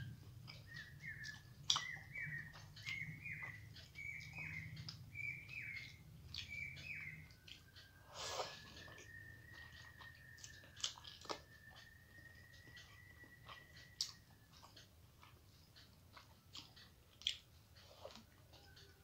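Eating by hand: fingers mixing rice on a plate and chewing, heard as soft wet clicks and smacks. Behind it, a run of short high chirping notes, about two a second, gives way after about seven seconds to one thin steady whistle-like tone that holds for about seven seconds.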